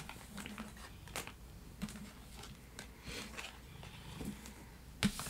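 Tarot and oracle cards being picked up off a cloth-covered table and stacked into a deck: soft irregular taps, slides and card-on-card clicks, with a sharper tap near the end.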